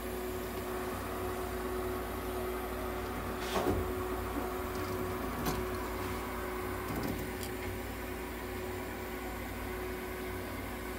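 Steady hum of the nebulizer and oxygen-cage equipment running as mist is fed into the cage, with one constant tone. A few light knocks in the middle.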